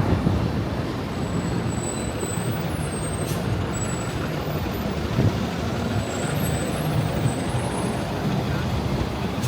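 Steady city street traffic noise, with a few faint high-pitched squeals now and then.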